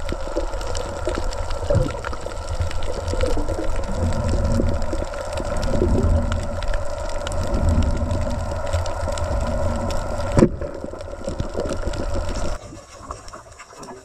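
Muffled underwater rumble with a steady hum, cut by one sharp snap about ten seconds in as the speargun fires at a fish. The rumble drops away about two seconds later.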